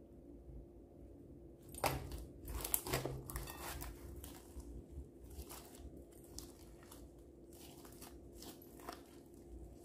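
Hands squishing and stretching glitter slime mixed with small foam beads and sequins, making crackling, crunching squelches in irregular bursts that start about two seconds in and are loudest soon after.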